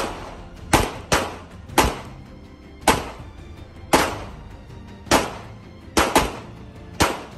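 Pistol shots fired in a string, about ten in seven seconds, unevenly spaced with a couple of quick doubles, as the shooter engages a series of targets.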